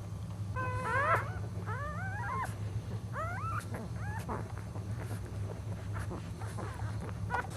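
Newborn puppies squealing: a string of short, high-pitched cries that rise in pitch, thickest in the first half and fainter later, over a steady low hum.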